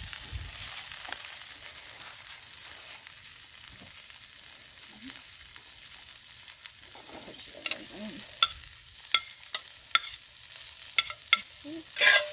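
Sliced peppers and onions sizzling steadily in hot oil in a cast iron skillet. In the second half a metal spatula clicks sharply against the pan about eight times, with a louder scrape near the end.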